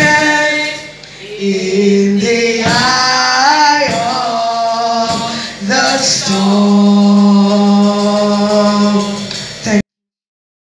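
Worship singing, a woman leading on a handheld microphone, in long held notes with gliding pitch. The sound cuts off suddenly near the end.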